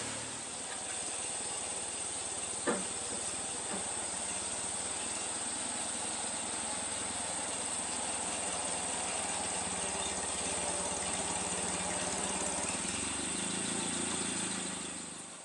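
Small antique tractor engine running steadily while it tows a trailer loaded with firewood, with one sharp knock about three seconds in.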